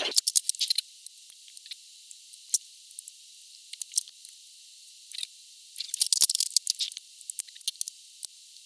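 Sharp clicks and snips from side cutters trimming component leads on a circuit board, with the clatter of the board being handled in its holder. The clicks come in a quick flurry at the start and another about six seconds in, with only scattered ticks between.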